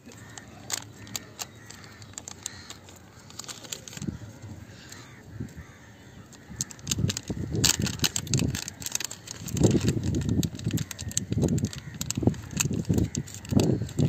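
Hands handling and opening a plastic fishing-tackle packet: irregular crinkles and sharp clicks. From about seven seconds in, louder low rumbling bursts come in.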